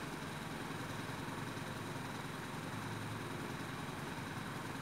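Steady low mechanical hum over a faint even hiss, unchanging throughout.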